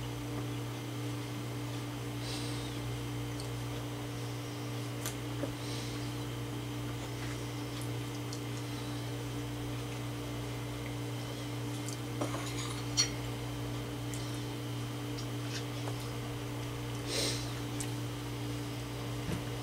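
A steady low hum with occasional faint clicks and scrapes of forks against pie dishes as pie is cut and eaten; the sharpest click comes about 13 seconds in.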